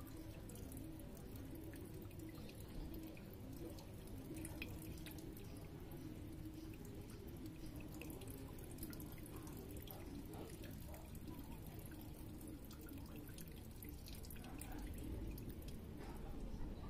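Fuel trickling and dripping from a motorcycle carburetor's float-bowl drain into a container as the bowl is drained, with small scattered drip ticks.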